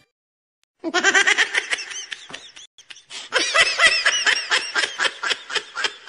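High-pitched human laughter in rapid ha-ha pulses, in two fits with a short break about two and a half seconds in.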